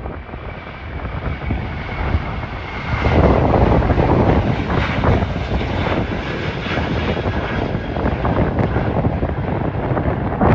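Boeing 737 jet airliner's engines at takeoff power as it lifts off and climbs away: a rushing jet noise that grows louder about three seconds in, with wind buffeting the microphone.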